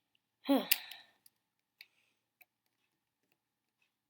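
A short breathy sigh from a person, falling in pitch, with one sharp click during it. A few faint clicks of plastic cube pieces being fitted follow.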